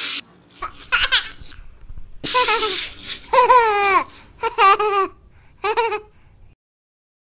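Laughter in about four short, high-pitched peals that fall in pitch.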